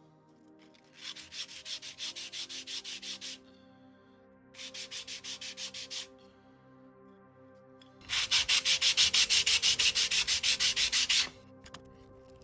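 Foam pieces being sanded square, with quick back-and-forth strokes of about six a second in three bouts; the third, longest bout near the end is the loudest.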